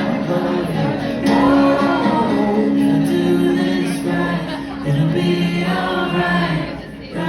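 A live band playing a song, with several voices holding long wordless notes in harmony over the instruments.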